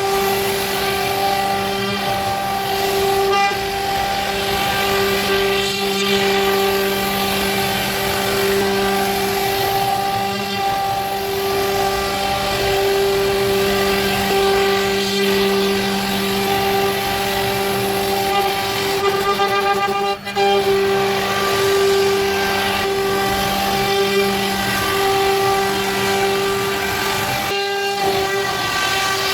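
CNC router spindle running with a steady whine, several tones held unchanged, with one brief drop in level about twenty seconds in.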